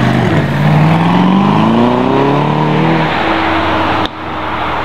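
Aston Martin DBX's twin-turbo V8 accelerating hard away, its engine note rising steadily for about three seconds and then holding. The sound cuts off abruptly about four seconds in.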